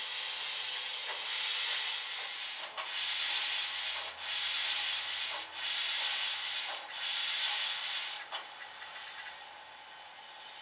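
Sound-decoder steam locomotive effect from an ESU LokSound 5, played through a small tender-mounted speaker in an HO scale 0-6-0 model: slow, drawn-out hissing steam chuffs about a second and a half apart, dying away a little past eight seconds in as the model stops.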